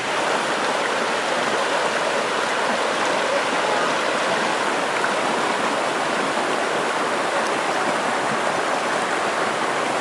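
Rocky forest stream flowing over stones: a steady, even sound of running water.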